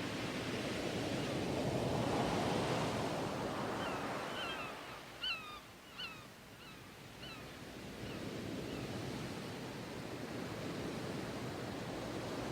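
Ocean surf washing in and drawing back, a swell early on easing to a lull and building again. During the lull a bird gives a quick string of short high chirps.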